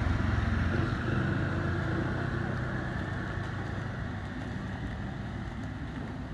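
Road traffic passing on a wet road: a motor vehicle's low engine hum with tyre hiss, loudest at first and fading away over the next few seconds.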